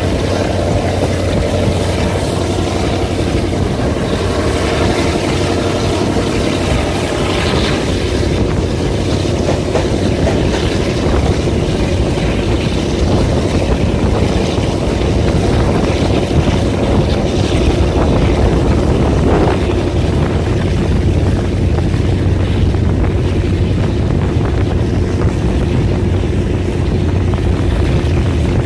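TCDD DE 24000 diesel-electric locomotive's engine running steadily as it pulls the train, heard from an open coach window, with the rumble of the wheels on the rails and some wind.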